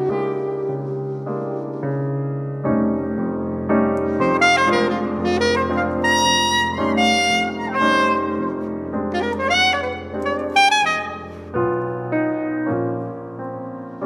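Instrumental video-game soundtrack music: a bright, jazzy tune with a melody moving over held chords.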